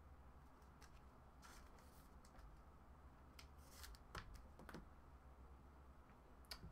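Near silence, with a few faint, scattered clicks and slides of trading cards being handled and pulled from a stack.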